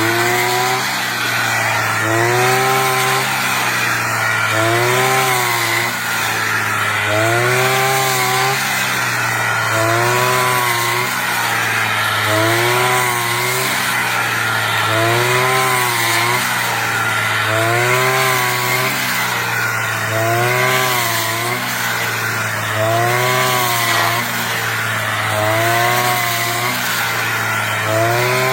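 Brush cutter engine running hard, its pitch dipping and recovering about every two and a half seconds as the blade swings through rice stalks and takes load.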